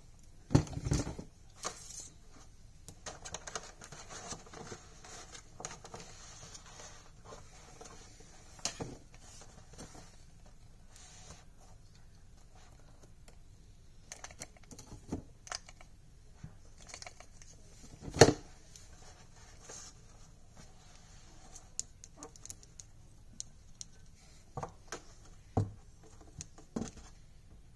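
Handling noises from faux fur being worked onto a fabric lamp shade: soft rustling broken by scattered clicks and knocks, the loudest a sharp knock about eighteen seconds in.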